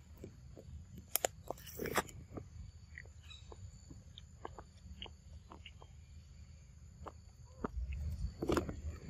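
A monkey biting and chewing a snack from a plastic packet: scattered sharp crunches and crackles, the loudest in the first two seconds, then lighter ticks. A low rumble grows near the end.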